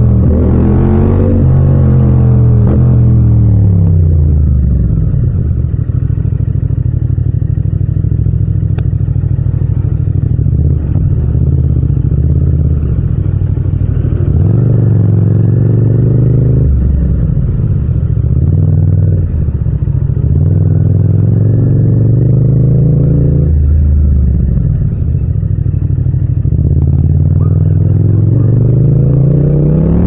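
Yamaha MT-07's 689 cc parallel-twin engine heard from the rider's seat, running in low gears and rising and falling in pitch several times as it accelerates and eases off, with steadier stretches between.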